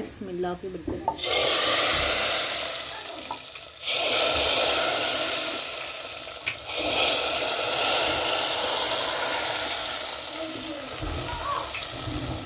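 Garlic tadka, hot oil with browned garlic, poured into a clay pot of boiling yogurt-based saag, hissing and sizzling loudly as it hits the liquid. It comes in three surges, about a second in, near four seconds and near seven seconds, then eases off.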